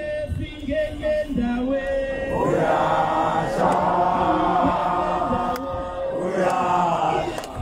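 A crowd of many voices singing a protest chant in chorus, with a lead voice amplified through a PA speaker.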